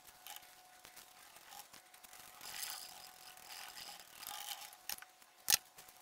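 Soft scratchy rustling of gauze and a bristle brush dabbing it onto a silicone mold, with a few small ticks and one sharp click about five and a half seconds in.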